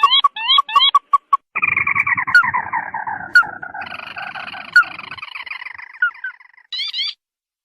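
Crake calls played as a bird-trapping lure. A few short upslurred notes are followed by a long chattering trill that falls in pitch. A second, higher trill overlaps it and short rising notes return near the end.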